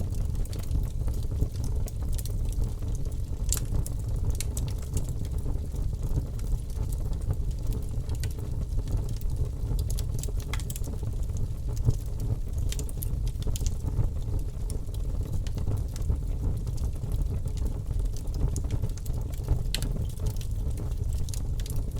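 Bonfire burning: a steady low rumble with sharp crackles and pops scattered throughout, one louder pop about halfway through.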